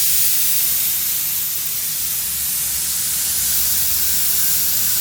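Sullair 20-125L rotary screw air compressor running, a steady hiss of compressed air over a low drone.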